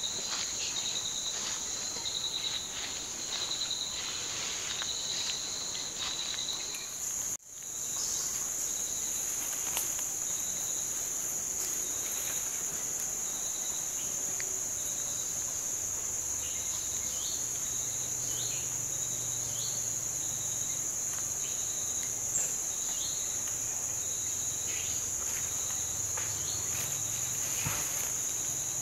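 Insects keeping up a steady high-pitched drone. A second insect's pulsing trill runs through the first several seconds, and short scattered chirps sound over the drone.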